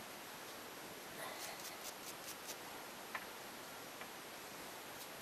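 Faint clicks and taps as small metal silencer baffles are set down one by one on a wooden workbench: a quick cluster of light clicks, then a couple of single clicks.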